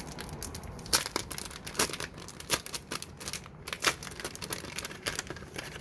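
Packaging being opened by hand: wrapping crinkling and crackling in irregular sharp clicks.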